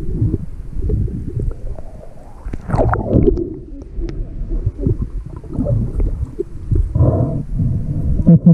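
Muffled underwater sound from a GoPro in its waterproof housing as a snorkeler swims: uneven low rumbling and gurgling of moving water and bubbles. A brief muffled pitched sound comes about seven seconds in.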